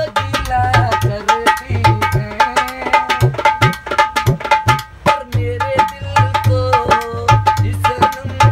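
A dholak, a rope-tensioned two-headed barrel drum, played by hand in a fast, steady rhythm, with deep bass strokes and sharper slaps. A man sings over it, his voice gliding between notes.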